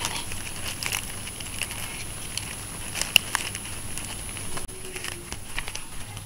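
Green mustard (sawi) being picked by hand: leaves rustling and crisp stalks crackling and snapping, with one sharp snap about three seconds in.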